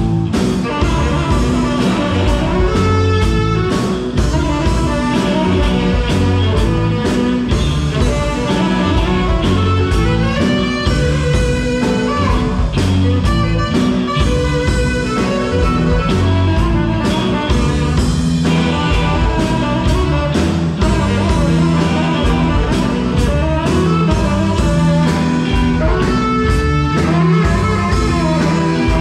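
Live blues band playing an instrumental passage: electric guitar to the fore over bass and a steady drum beat.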